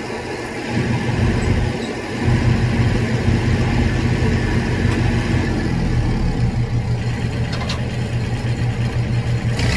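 An engine running steadily with a low hum, getting louder about a second in and again a second or so later. A single click comes near the end.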